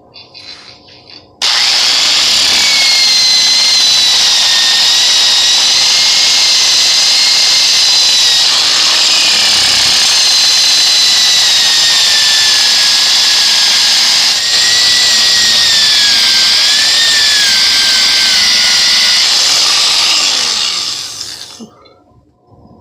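Electric drill spinning a wire brush against the rusty steel head of a mattock, stripping rust. It starts abruptly about a second and a half in and runs steadily, its whine wavering in pitch, then winds down near the end.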